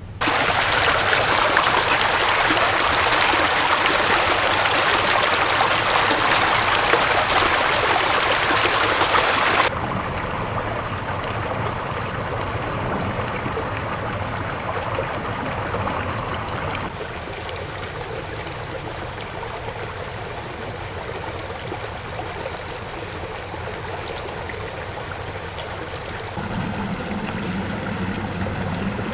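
Running stream water recorded on a camcorder's built-in microphone, in several shots cut together: a loud rushing stretch for roughly the first ten seconds, then quieter rippling flow, with the sound changing again at cuts about 17 and 26 seconds in.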